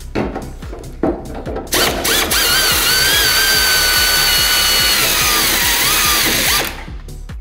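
Air-powered drill driving a self-tapping screw into a steel front guard: two short blips, then a long steady high whine of about five seconds whose pitch sags near the end as the screw seats, before it stops suddenly. Background music with a steady beat runs underneath.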